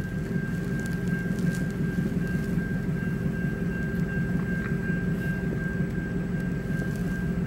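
Railroad crossing warning bell ringing as a steady high tone over a constant low rumble from an idling engine.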